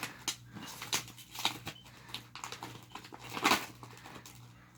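Plastic snack packaging of mini donuts being handled and opened: irregular crinkling and crackling clicks, with one louder crackle about three and a half seconds in.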